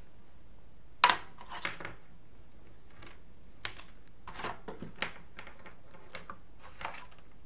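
Earbuds, a bag of ear tips and packaging being handled and set down on a wooden desk: a scatter of light knocks, clicks and rustles, the sharpest about a second in.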